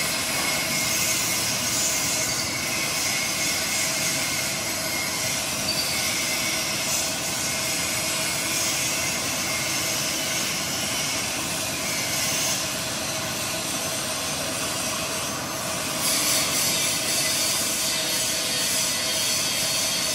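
Steady din of metalworking machinery running: a continuous hiss with a faint steady hum underneath, turning brighter and a little louder about 16 seconds in.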